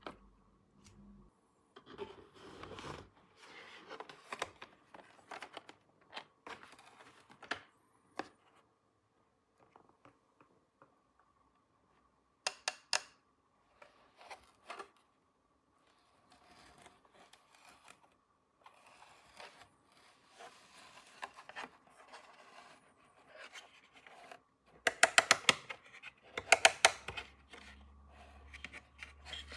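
Plastic toys and packaging handled at close range: scratching, scraping and tearing sounds, with a couple of sharp clicks about halfway through and a louder run of rapid clicking and rattling near the end.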